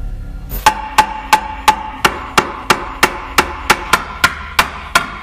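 Hammer driving nails into a wooden board: about fourteen quick, evenly spaced strikes, roughly three a second, each with a short metallic ring.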